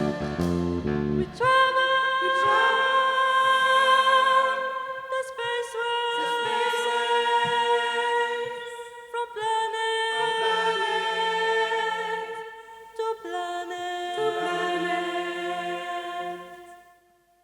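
A band's loud chord with brass cuts off about a second in. A vocal ensemble then sings long held chords without accompaniment, new voices entering one after another and stacking up. The singing fades out near the end.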